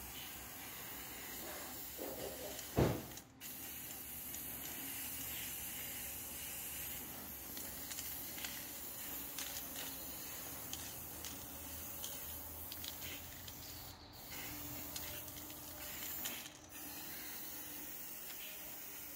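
Aerosol spray-paint can hissing as paint is sprayed onto a tubular iron chair frame, with a few very short breaks. A single sharp knock about three seconds in is the loudest sound.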